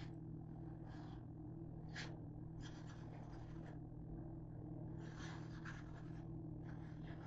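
Paper towel rubbing and wiping across the grill in three short stretches of about a second each, over a steady low hum.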